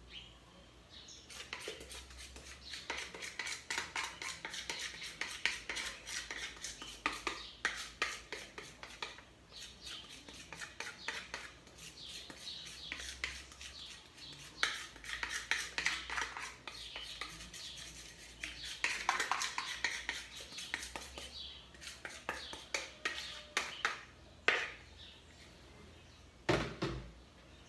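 A spoon scraping and tapping against a plastic mixing bowl and a metal baking pan as thick cake batter is scraped out and spread, in quick irregular clicks and scrapes, with one louder clunk near the end.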